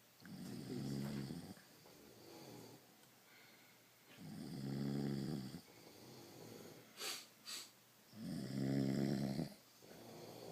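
Sleepers snoring: three loud, pitched snores about four seconds apart, with softer snores in between them from a second sleeper. Two short sharp snorts come a little after the middle.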